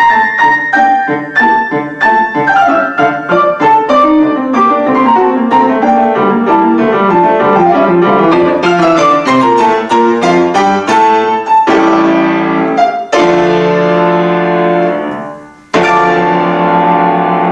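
Acoustic piano played four hands: a stretch of quick running notes, then three big closing chords, the last one held and ringing.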